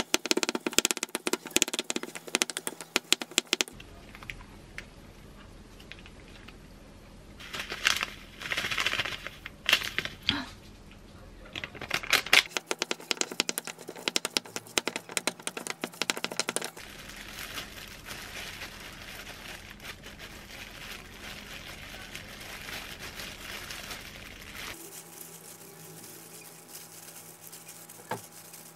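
A spatula stirring and scraping cooked rice against a ceramic bowl, in several separate stretches of quick clicking and scraping with quieter gaps between. Near the end, plastic gloves crinkle as hands work the rice.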